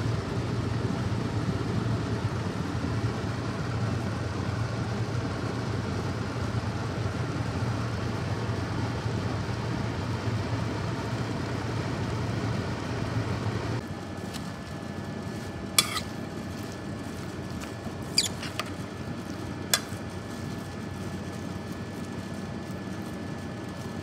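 Steady low kitchen hum that drops away about two-thirds of the way through, followed by three sharp clinks of kitchenware a second or two apart.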